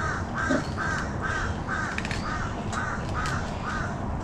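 A bird calling in a long, even series of short arched calls, about two a second, ending shortly before the end.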